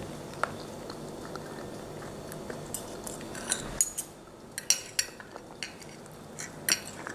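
Metal fork and knife clinking and scraping against a ceramic plate while cutting a portion of baked polenta, with several sharp clinks in the second half.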